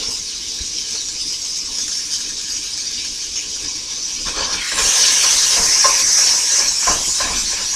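Ground beef sizzling in a hot cast iron skillet, a steady hiss. A little past halfway the sizzle gets louder as a spatula starts breaking up the meat, scraping and knocking against the pan.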